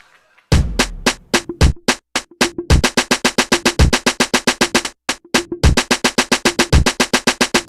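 Electronic music with a fast, steady drum-machine beat that starts about half a second in, with a couple of brief breaks.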